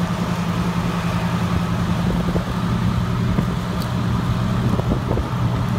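Fire engines' diesel engines running at a steady, unchanging pitch, a low hum with no speech over it.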